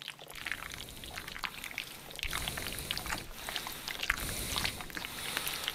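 Diced potato chunks pouring from a glass bowl into a pot of boiling water, splashing and plopping in a quick irregular patter over a hiss that grows louder about two seconds in.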